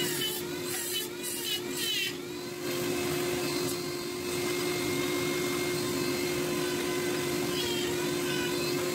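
Dremel rotary tool running with a steady whine while its bit carves fine beard-hair grooves into wood. The whine wavers in pitch during the first couple of seconds and again near the end.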